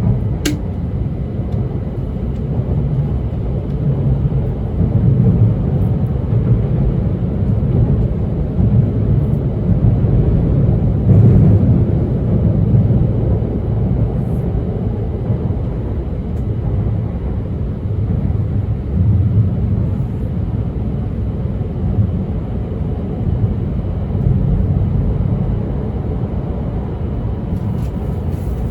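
Steady low rumble of wheels on track and running noise heard inside the passenger cabin of an E2 series 1000 Shinkansen train, with a single sharp click just after the start.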